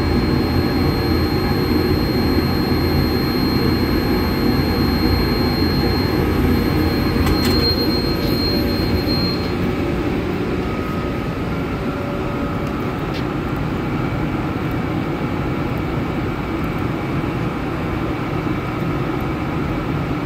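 Steady machine drone from a 2,000-watt laser cutting machine and its running equipment, with a thin high whine that stops about halfway through and a couple of faint clicks.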